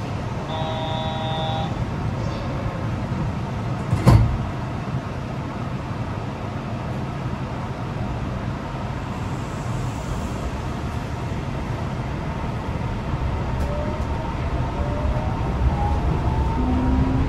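Yurikamome electric train standing with a steady hum. A brief chime of steady tones comes about half a second in and a single loud thump about four seconds in. Over the last few seconds the train's electric drive whine rises in pitch as it starts to move off.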